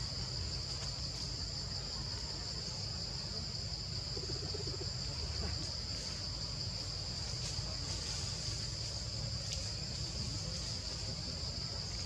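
Steady, high-pitched chirring of an insect chorus, unbroken throughout, with a fainter, higher tone above it.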